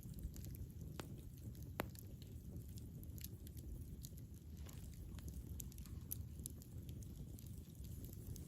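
Campfire burning: a steady low rumble from the flames with frequent small crackles of burning wood, and two sharper pops about one and two seconds in.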